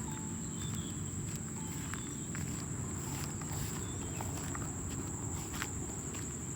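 Footsteps walking through a rice field, with scattered light crunches, over a steady high-pitched drone of insects.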